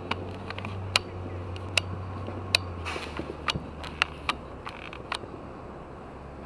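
About a dozen sharp clicks or taps at uneven spacing, with the loudest in the first few seconds, over a low steady hum that drops off about three seconds in.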